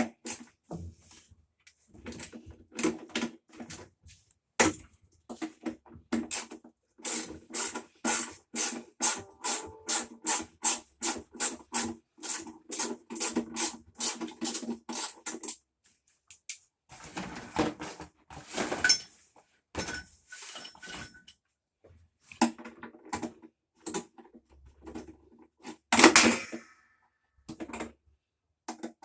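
Hand-tool work on a top-load washer: a run of sharp knocks at about two a second for several seconds, each with a short ringing tone, amid scattered clatter of tools and parts and one loud clash near the end.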